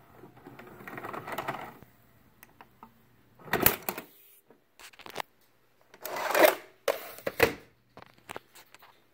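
Audiovox VBP 2000 video cassette player's tape mechanism whirring as it stops and unthreads the tape. Then comes a loud clunk as the VHS cassette ejects, and after a pause a scrape as the cassette slides out of the slot and the loading flap clicks shut.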